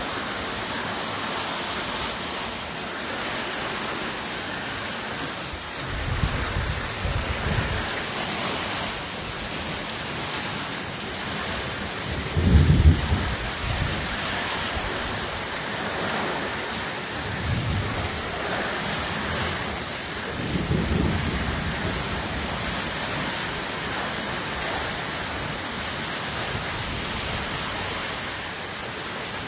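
Heavy rain falling steadily, with low rumbles of thunder several times, the loudest about halfway through.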